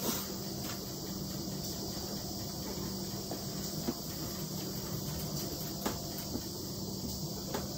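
Steady background hiss with a low hum, and a few soft knocks of glass canning jars being handled and set down on a towel-lined metal tray.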